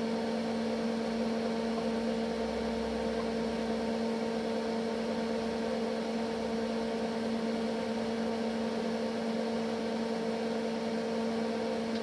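Steady electrical mains hum from energised workshop equipment: two strong pitched tones with fainter ones above, holding level throughout.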